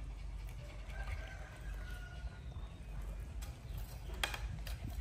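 A faint animal call, falling slightly in pitch for about a second, over a low steady rumble, with a few sharp clicks or knocks near the end.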